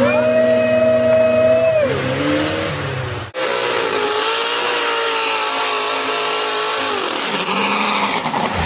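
Mud-bog truck engines at high revs plowing through a mud pit, with mud and water spraying. The first engine holds a high pitch, then falls away about two seconds in. After an abrupt break, a second engine holds high, wavering revs that drop off near the end.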